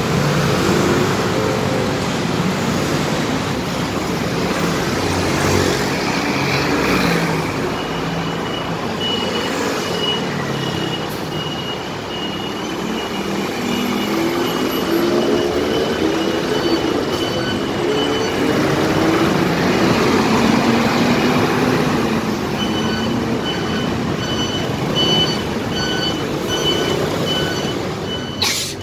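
Busy street traffic: scooter and vehicle engines running and accelerating past, with a minibus pulling in. From about a quarter of the way in, a high electronic beep repeats at a little under two beeps a second.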